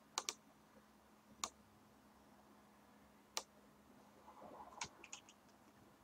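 Faint clicks of a computer mouse button, about seven in all: a quick pair near the start, then single clicks spread through the rest, with a faint steady hum underneath.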